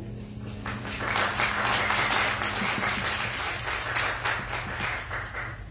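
Congregation applauding after a trumpet solo. The clapping starts about a second in and stops shortly before the end.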